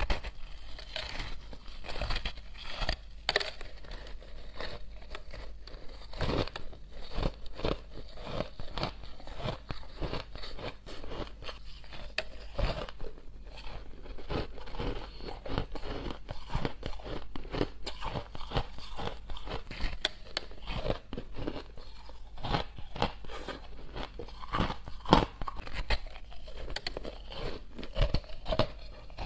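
Close-miked crunching and chewing of a block of refrozen purple crushed ice: dense, irregular crackly crunches from bites and chewing, with one sharper, louder crunch about 25 seconds in.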